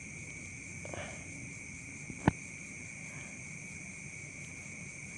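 Steady, faint high-pitched ringing background noise, with one sharp click a little over two seconds in.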